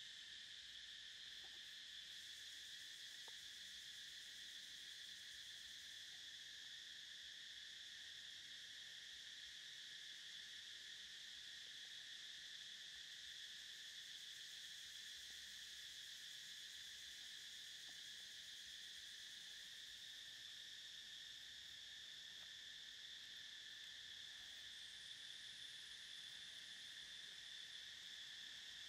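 Faint, steady chorus of insects: a continuous high-pitched buzzing drone that holds level throughout.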